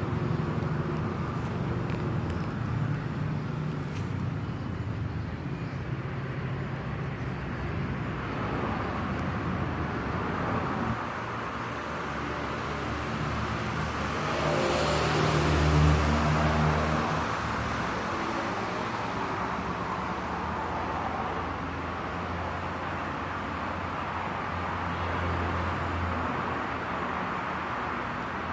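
Steady road traffic noise, with a motor vehicle passing close by about halfway through, its engine swelling and fading.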